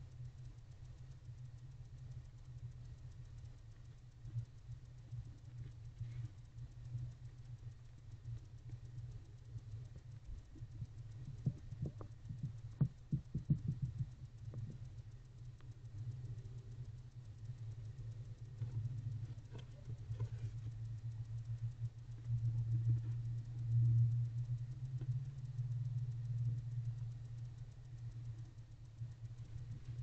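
A steady low hum runs throughout, growing louder late on. About twelve seconds in comes a short run of scratchy clicks and taps, from a barn owl shifting and preening on the floor of its nest box.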